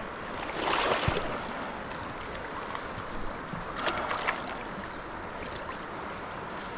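Shallow river running over rocks, with splashing about a second in and again near four seconds as a big fish is scooped into a landing net.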